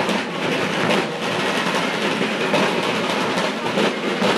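Field drums of a colonial-style drum corps beating as the corps marches past, a dense clatter of drum strokes with no clear tune.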